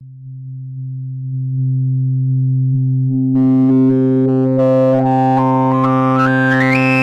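A Juno-106-style synthesizer holding one low note that swells in volume as its filter slowly opens, bringing in more overtones. From about halfway through, the resonant filter sweeps upward, picking out the note's harmonics one after another as a rising stepped whistle.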